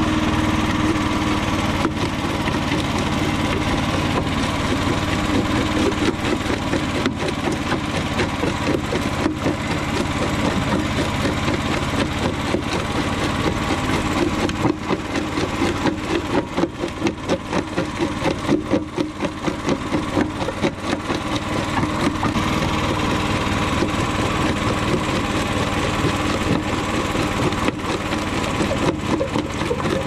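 Homemade jaw crusher running under power, its jaws crushing a chunk of concrete with repeated cracking and crunching over a steady engine drone. Around the middle the sound pulses in a regular rhythm as the moving jaw bites the concrete.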